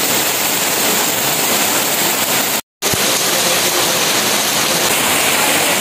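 Rain pouring steadily on leaves and the ground, a dense, even hiss, broken by a brief dropout a little under three seconds in.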